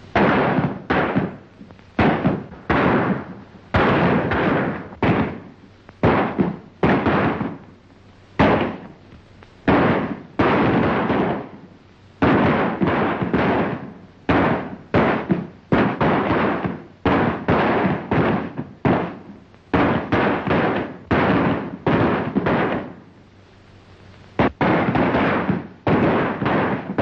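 Gunshots in a shootout: dozens of shots fired in quick succession, one to two a second, each with a short echoing tail, with a brief lull a few seconds before the end.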